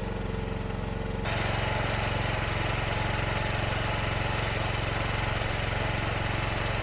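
Chinese mini excavator's engine running steadily while the machine holds a heavy log at the limit of its lift. About a second in, the sound steps up, louder and brighter.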